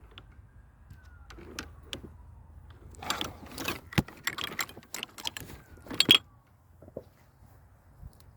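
Clinking and rattling handling noises, bunched in the middle, with a sharp click about four seconds in and a louder clatter about two seconds later.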